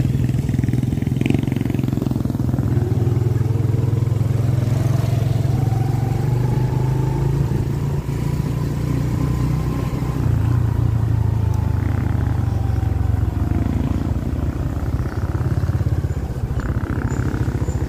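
Motorcycle engine running steadily at cruising speed, heard from the rider's seat as a continuous low hum with road noise.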